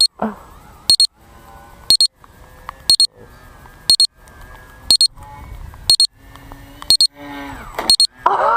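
A high-pitched electronic beeper sounding a short double beep once a second, nine times in a row, over faint background noise.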